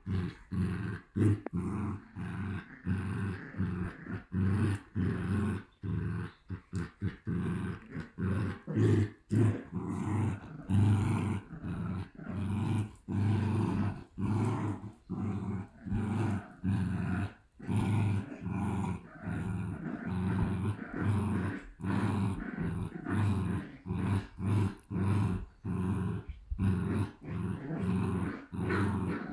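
Two Shiba Inus, an adult and a puppy, play-growling while tugging a rope toy between them: runs of low growls broken by brief pauses for breath.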